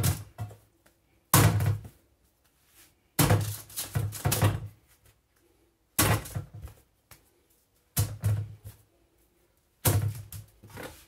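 Dull thunks of a metal baking tray knocking on the worktop as pieces of brioche dough are pressed down onto it, about six of them, roughly one every two seconds.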